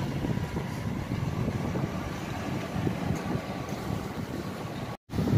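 Steady low rumble of street background noise, with a brief drop-out about five seconds in.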